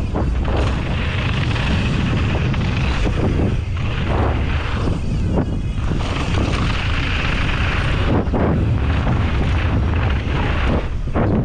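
Mountain bike descending a rough trail at speed: a steady wind rumble on the microphone over the rattle of the bike and its tyres on the dirt, with a few sharper knocks from hits on rough ground.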